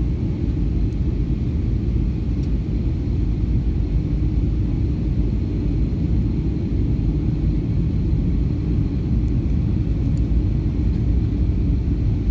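Steady low rumble of an Airbus A320's engines and the rushing air around it, heard from inside the passenger cabin during the descent.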